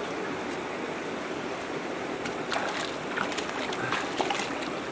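Shallow mountain stream running over rocks, a steady rush of water, with a few faint ticks in the middle.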